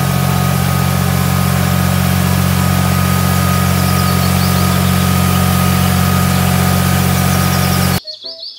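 Massey Ferguson tractor's diesel engine running steadily at low revs, a deep even drone that cuts off suddenly near the end.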